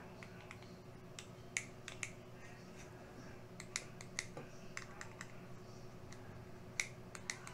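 Sparse, faint clicks and taps of a small screwdriver and a 3D-printed plastic Morse key body being handled while screws are driven into the plastic.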